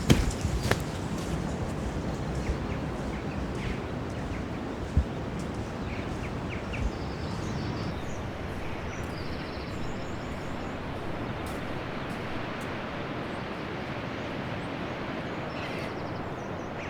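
Steady wash of sea waves with wind on the microphone. A few faint bird calls come through, and there are a couple of knocks near the start and about five seconds in.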